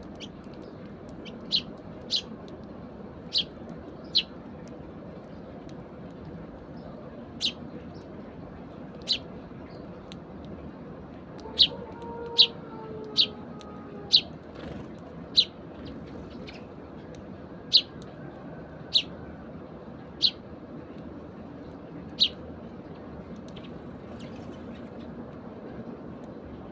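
Eurasian tree sparrows chirping: about fifteen single short, sharp chirps, irregularly spaced a second or two apart and bunched most closely in the middle, over a steady low background noise.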